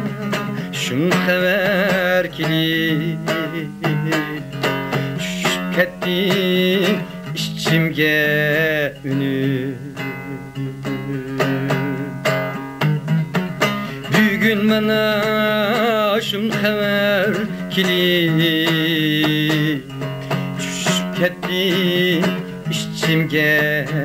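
A man singing a wavering, ornamented melody while strumming and plucking a long-necked lute as accompaniment.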